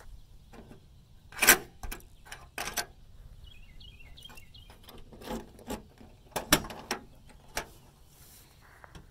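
Key and trunk lock of a 1976 Cadillac being worked by hand, with the crest badge flipped aside: a string of sharp clicks and knocks, loudest about a second and a half in and again about six and a half seconds in, mixed with handling noise from fingers close to the microphone.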